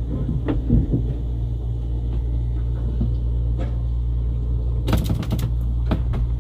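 Steady low drone of the trawler's inboard engine, heard below deck, with a few knocks and a burst of clattering about five seconds in.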